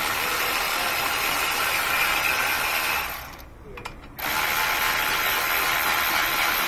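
Cordless electric ratchet running in two long runs of about three seconds each, with a short pause between, as it spins out the already loosened front brake caliper bracket bolts.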